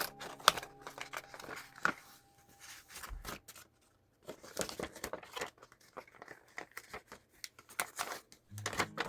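Self-adhesive wallpaper film being handled and worked onto a PVC box: crinkling, peeling and tearing of the film, with sharp clicks.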